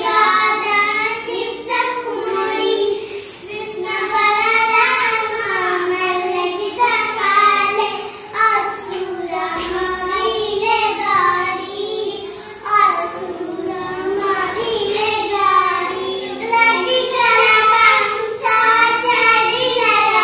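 Two young girls singing an Odia children's action song together, in a continuous sung melody.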